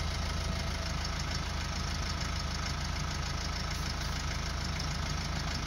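Subaru flat-four boxer diesel engine idling steadily, an even low hum with a fine regular beat.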